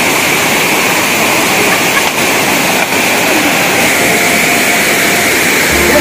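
Waterfall crashing onto rocks and into a pool: a loud, steady rush of falling water.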